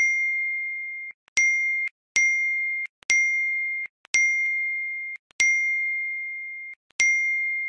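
A high, bell-like ding sounding seven times, roughly once a second; each ring starts sharply, fades, and is cut off abruptly.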